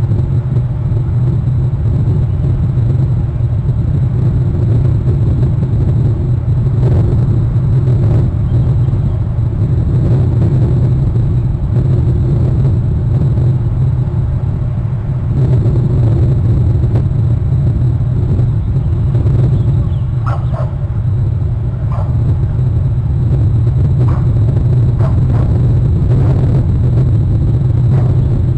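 Steady low rumble of wind on an outdoor nest-cam microphone, with a few faint short sounds between about 20 and 27 seconds in.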